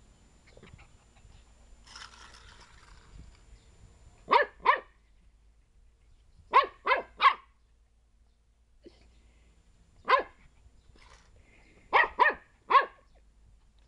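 A small puppy barking in short, high yaps: nine in all, in quick groups of two, three, one and three, with pauses between.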